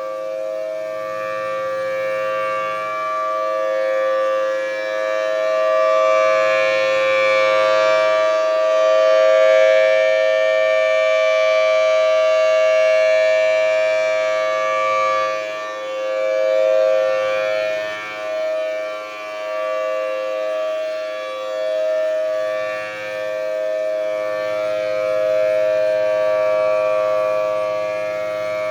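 Thunderbolt 1000T outdoor warning siren sounding a steady two-note tone at full speed, its loudness swelling and fading every few seconds as the rotating horn sweeps past. The siren sounds very healthy.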